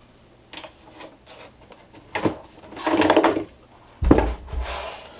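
Items being put away into a storage drawer: a knock, a drawer sliding with a short scrape, then a heavy thud as it shuts about four seconds in, followed by a lighter knock.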